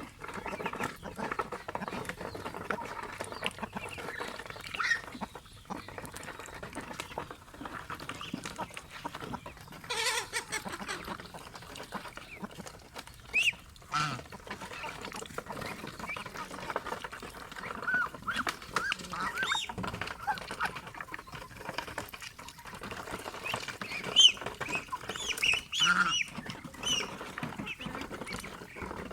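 Pet geese and ducks calling together: many short honks and calls come in clusters, with the busiest and loudest stretch near the end.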